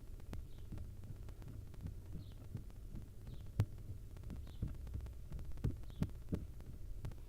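Inside a barn owl nest box: a low steady hum, with irregular soft thumps and knocks as the owls shift against the wooden box. Faint short high chirps come about once a second.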